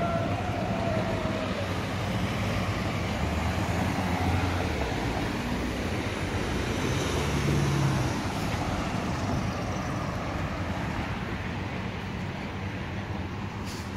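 Car engines running amid street traffic noise, a little louder about halfway through.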